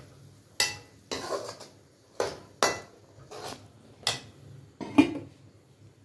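Metal slotted spoon stirring chickpeas in an aluminium cooking pot, knocking and scraping against the pot in about seven sharp clanks, the loudest near the end.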